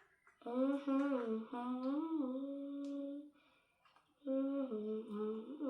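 A girl humming a tune to herself: two phrases of held notes that slide up and down, with a short break about three seconds in.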